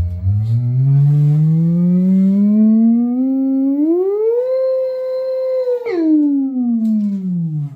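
Electric motorcycle controller's motor-drive signal played through a 10-inch loudspeaker wired straight to the controller: a loud electronic whine whose pitch follows the motor's speed. It glides steadily up for about four seconds and holds high, then drops suddenly about six seconds in and slides back down.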